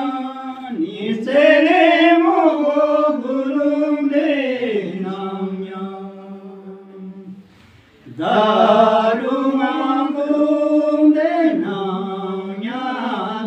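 A group of men singing together without accompaniment, a slow chant-like song of long held notes. One phrase sinks to a low held note and fades, and after a short break about halfway through the next phrase starts loudly.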